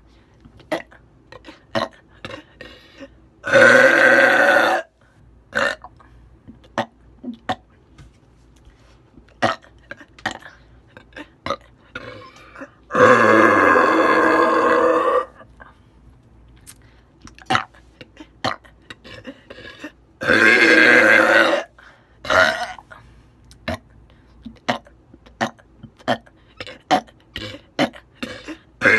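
A woman burping: three long, loud belches spaced several seconds apart, with many short clicks and small throat sounds between them.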